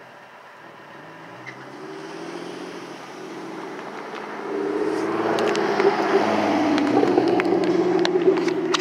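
Cars driving over a railroad grade crossing, their engine and tyre noise growing louder as they pass close in the second half, with scattered sharp clicks.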